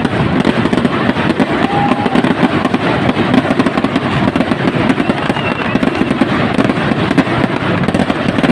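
Fireworks going off without pause: a dense, continuous crackle of many small bursts.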